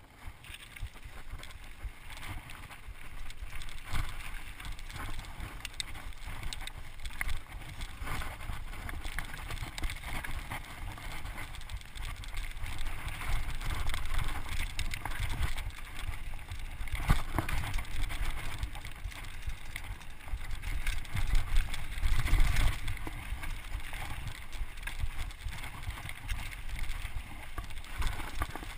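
Mountain bike ridden fast down a gravel singletrack: wind buffeting the microphone as a steady low rumble, tyres crunching on the gravel, and frequent knocks and rattles from the bike over bumps, the hardest jolts a little past halfway and again about three-quarters of the way in.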